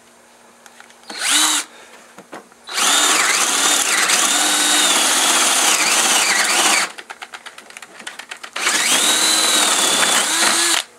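DeWalt 18-volt cordless drill, run from a mains power supply in place of its battery, drilling into a wooden board. A short burst comes first, then a run of about four seconds whose whine sags and recovers as the bit bites into the wood. A stretch of quick, even clicking follows, then another run of about two seconds.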